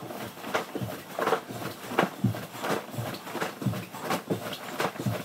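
Cotton karate gi swishing and bare feet thumping softly on a hardwood floor during squats with kicks, in a quick, uneven run of short swishes and thuds.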